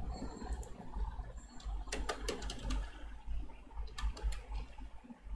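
Computer keyboard keys clicking in short runs of typing, a few quick keystrokes at a time, over a steady low hum.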